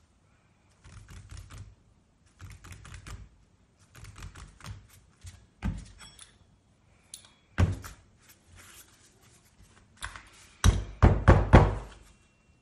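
Tools and metal parts of a moped drive pulley being handled during disassembly: clusters of small clicks and taps, two heavier single knocks midway, and a quick run of about half a dozen loud knocks near the end.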